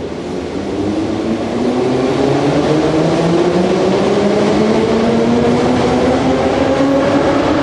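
Electric train pulling away: the motor whine rises steadily in pitch over a rumble, growing louder over the first couple of seconds and then holding.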